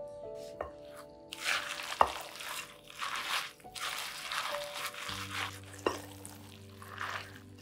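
Silicone spatula stirring wet grated vegetables and breadcrumbs in a glass bowl: repeated scraping, squelching strokes, with a sharp tap against the bowl about two seconds in, over background music.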